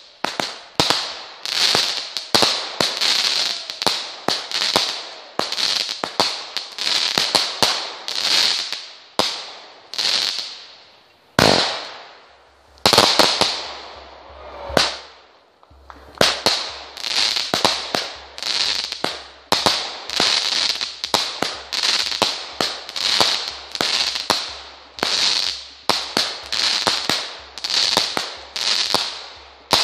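Consumer firework cake (multi-shot battery) firing shot after shot, about one to two a second, each bang trailing off in a fading crackle, with a brief pause about halfway.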